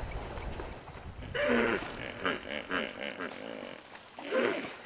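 Hippopotamus giving loud grunting calls that fall in pitch, one about a second and a half in, shorter ones after it, and another near the end.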